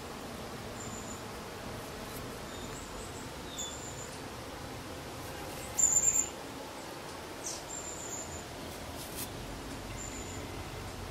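Small birds chirping in short, high calls every second or two over a steady background hiss, with a louder burst of chirps about six seconds in.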